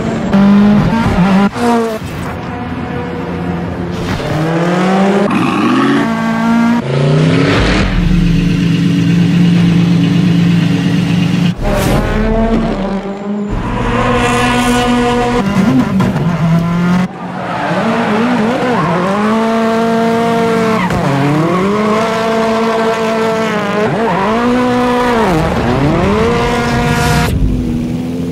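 Rally car engine revved hard, swinging up and down again and again as the car drifts, with tyre squeal and a few sharp cracks from the exhaust.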